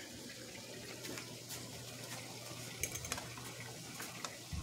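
Faint sizzling of food frying in oil in a pan, with scattered sharp crackles and light clinks, over a low steady hum that fades near the end.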